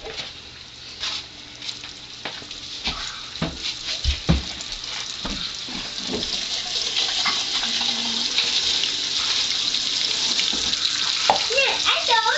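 Battered fish frying in a skillet of hot grease: a crackling sizzle that builds and grows louder from about halfway through. A few knocks and clicks of handling come in the first half.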